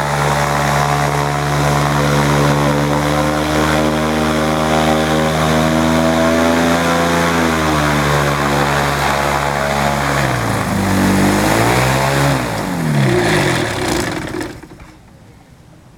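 Engine and pusher propeller of an amphibious flex-wing trike running steadily while taxiing, then throttled down about halfway through, rising and falling in pitch twice, and shut off near the end.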